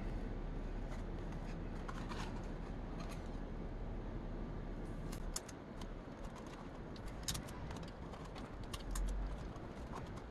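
Small handling sounds of cardboard and adhesive tape: scattered light clicks and rustles as a small cardboard box is pressed and taped together, over a low steady hum that drops a little about halfway through.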